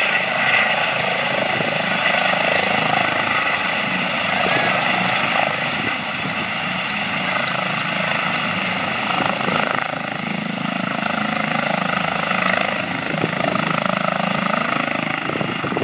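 Helicopter's main rotor and turbine engine running steadily as it touches down and sits on the ground with the rotor still turning.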